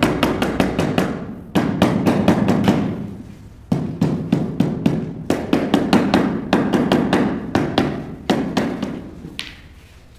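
A mallet tapping rapidly on a large 2×4 ft floor tile to bed it into the wet mortar: about five taps a second, in several runs with short breaks, stopping near the end.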